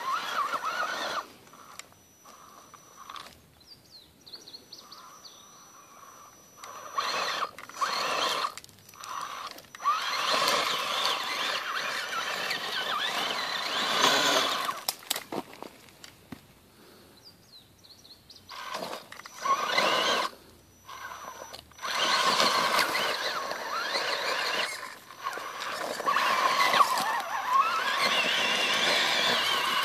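Brushless motor and geared drivetrain of an RC rock crawler (Holmes Hobbies BRXL) whining under load in repeated bursts of one to four seconds, with quieter gaps between them as the throttle is applied and let off.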